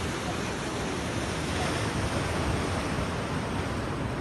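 Sea surf breaking and washing over the rocks, a steady rushing noise, with wind rumbling on the microphone.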